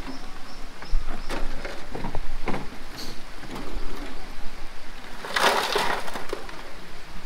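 Rocks knocking and clattering as stones are tipped and moved onto a stone road fill, with scattered sharp knocks and a short louder rattle of tumbling stones about five and a half seconds in.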